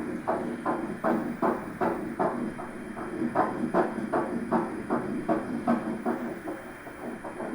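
Ultrasound Doppler sound of a 7-week embryo's heartbeat: fast, regular whooshing pulses, about two and a half a second. The heart is beating normally.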